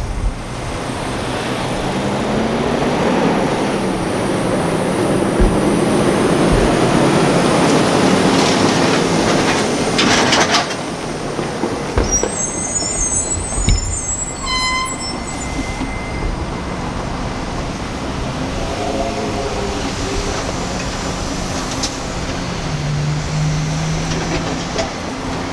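Freight train cars rolling along the track, a steady rumble and clatter of wheels on rail that builds over the first ten seconds. A sharp clank comes about ten seconds in, then a brief high-pitched wheel squeal a few seconds later, and the rolling continues a little quieter as the train moves away.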